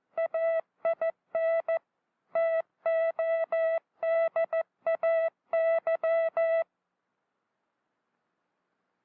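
Hand-keyed Morse code: a steady mid-pitched beep switched into short dits and long dahs, in groups separated by gaps, stopping about two-thirds of the way through. It is sent to show how faulty letter and word spacing changes the sense of a message.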